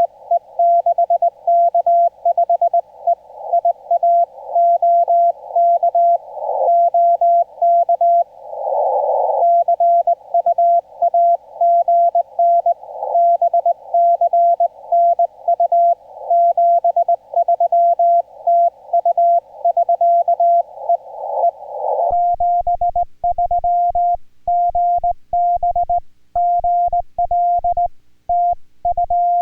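Korean Morse code sent as a keyed CW tone of about 700 Hz from a ham radio receiver, in steady dot-dash rhythm with a band of hiss around the signal and a brief rush of hiss without the tone around eight seconds in. About 22 seconds in the sound changes to a clean keyed tone without the hiss, with a low thump at each element.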